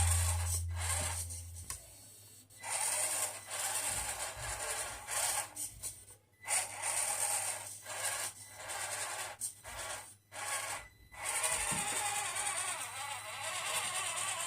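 Stop-start scraping and rubbing noise, in bursts of one to two seconds with short breaks, after a low hum fades out during the first two seconds.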